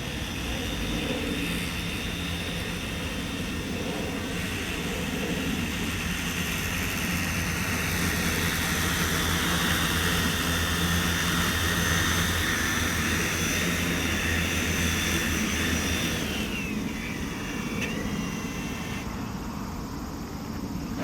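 Multirotor crop-spraying drone with a 5-litre tank, its rotors running with a steady whine and hum that grows louder towards the middle. About three-quarters of the way through the pitch drops and the sound fades as the motors slow.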